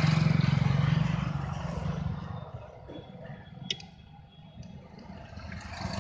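Maruti 800's small three-cylinder petrol engine running under the open bonnet. It is revved at the start, then settles back down to a lower idle by about two and a half seconds in, with a single sharp click partway through.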